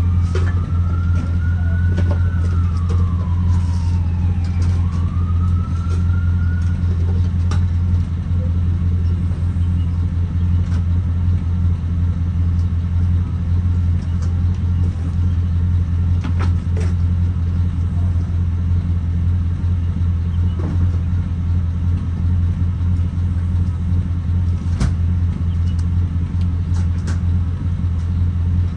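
GM 4.8 LS V8 truck engine running with a steady low drone through its freshly welded, non-OEM muffler exhaust. The owner says the engine still runs a little rough and is throwing a check engine light, which he takes for misfires.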